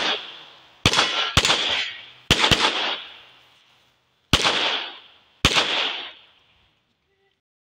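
Handgun firing six shots over about five seconds, two of them a fast pair a quarter-second apart, the rest spaced about half a second to two seconds apart. Each shot is followed by an echoing tail that dies away over about a second.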